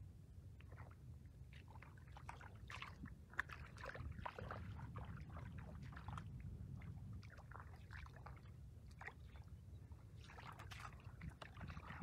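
Hands sloshing and splashing in shallow muddy water, a faint, irregular run of small splashes and drips, busiest in the middle, over a low steady rumble.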